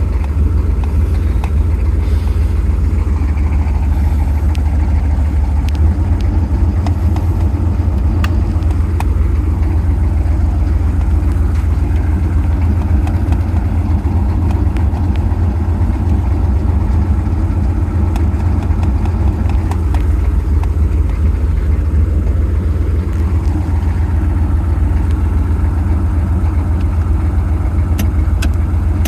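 6.5-litre engine running at a steady idle with no revving. It is the engine with the owner's cold-start fault: hard starting below 40°F and no throttle response until it warms up.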